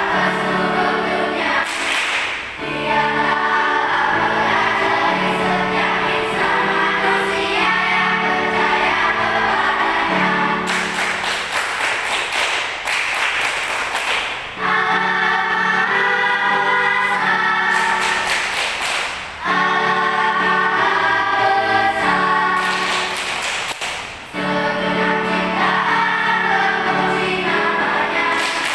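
Primary-school choir singing in rehearsal, phrase after phrase with brief breaks between them.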